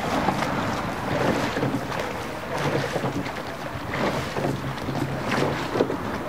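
Wind buffeting the microphone over the water sounds of a rowing shell's crew stroking along, oars working the water.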